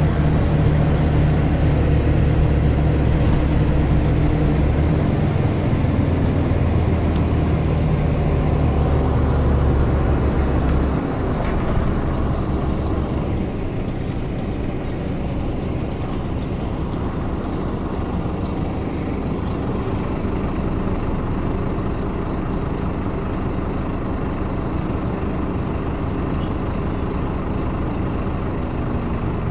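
Scania CN270UB city bus heard from inside the passenger cabin: a steady low engine drone under power, then about eleven seconds in the engine note drops away and the bus runs on more quietly with road and body noise.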